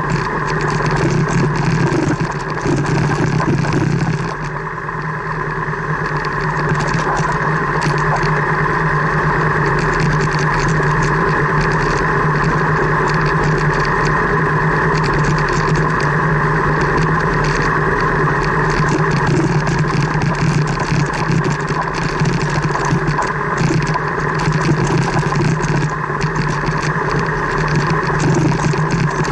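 Car engine running steadily at low speed while the tyres crunch and rattle over a loose gravel track, heard from inside the car's cabin.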